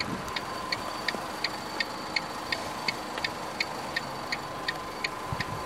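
Rapid, even electronic ticking from the dashboard of a 2009 Mitsubishi Colt, about three short ticks a second.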